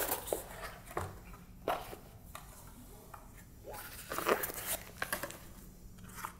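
Handling noise from unpacking a folded photo light box: scattered light taps, knocks and rustles of its panels, with a short busier patch about four seconds in.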